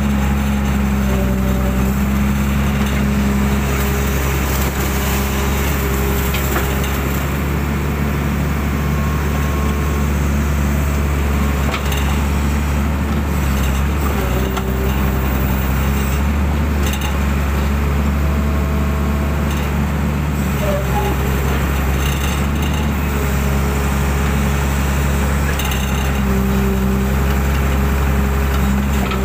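Hydraulic excavator's diesel engine running steadily, heard from the operator's cab while the boom and bucket dig mud from a drainage ditch. The engine note rises and falls slightly now and then as the machine works.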